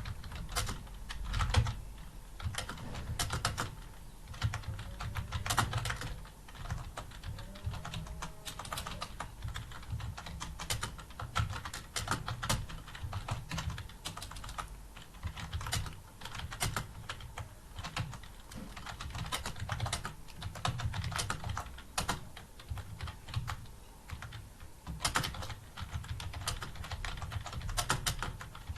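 Continuous typing on a computer keyboard at a steady pace, a dense run of key clicks with occasional louder strokes.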